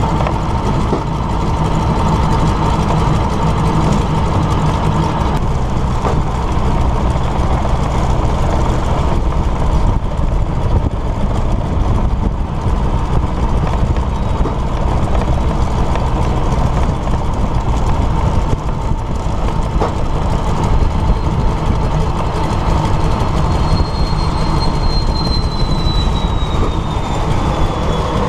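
Vultee BT-13A's Pratt & Whitney R-985 nine-cylinder radial engine running steadily at low taxi power, with open-cockpit wind noise. Near the end a faint high whine slides down in pitch.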